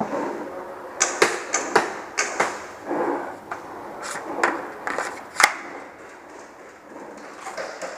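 Irregular single sharp cracks and knocks, about a dozen spread unevenly with the sharpest about five and a half seconds in: sporadic gas blowback airsoft rifle shots and BB impacts.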